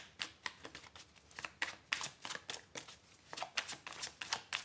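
A deck of tarot cards being shuffled by hand: quick, irregular card snaps and flicks, several a second.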